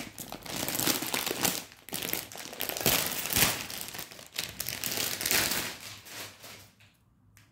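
Plastic packaging crinkling and rustling as a hip belt is unwrapped by hand, stopping shortly before the end.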